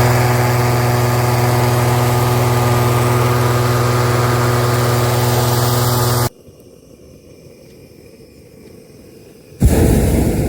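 Hot air balloon inflator fan's petrol engine running steadily with a deep drone, cutting off suddenly about six seconds in. About a second before the end, a balloon burner fires with a loud roar that then fades.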